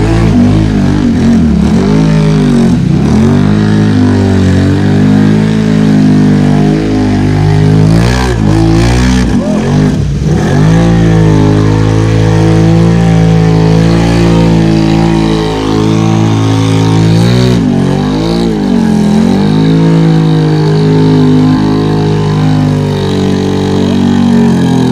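ATV engine running hard through deep mud, its pitch dropping and climbing again several times as the throttle is eased and opened, with mud and water splashing from the tyres.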